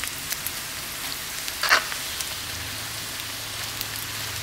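Puffed pork back fat pieces deep-frying in hot oil in a wok: a steady sizzle with small crackles. A mesh strainer stirs through the pieces, with one louder scrape a little under two seconds in.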